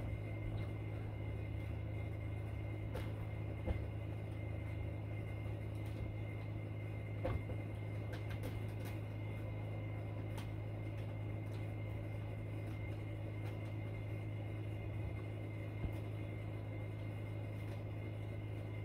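A steady low electrical hum with a faint high whine over it, broken by a few soft clicks.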